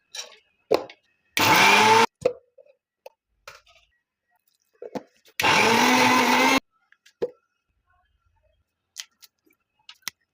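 Electric kitchen mixer grinder run in two short pulses, the second longer, its motor pitch rising as it spins up each time. Scattered clicks and knocks come between the pulses.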